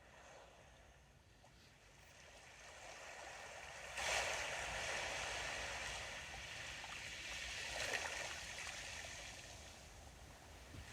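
Sea waves washing onto the shore. The surf builds from about two seconds in, breaks with a sudden rush at about four seconds, surges again near eight seconds, then ebbs.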